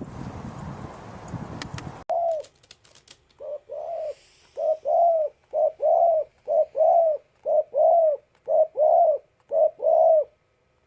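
Dove cooing: seven pairs of soft, rounded coos, a short note then a longer one, one pair about every second. Before it, for the first two seconds, a rushing, wind-like noise that cuts off suddenly.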